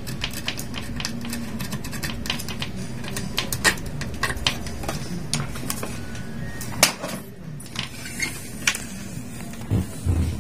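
Irregular small clicks and taps of multimeter test probes and fingers on a circuit board and workbench, with a few louder knocks after the middle as the meter is moved aside and the board is handled.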